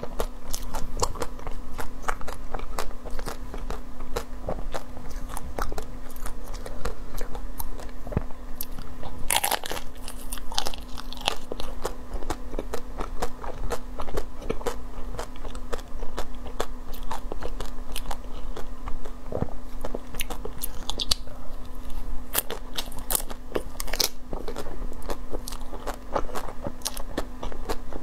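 Close-up crunching and chewing of chocolate-coated ice cream cakes: the hard chocolate shell cracks and crackles in many small sharp snaps, with louder crunching bites around 10 seconds in and again around 21 to 24 seconds.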